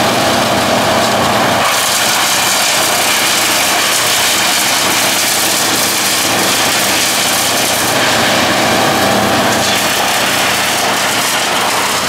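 Engine of a tow-behind wood chipper running steadily and loudly, a constant drone with no break.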